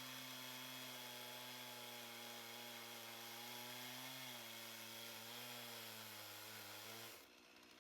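Stihl 440 two-stroke chainsaw on a chainsaw mill running under load in a slab cut, faint and steady, its pitch sagging slightly a little past halfway as the load changes; it cuts off suddenly about seven seconds in.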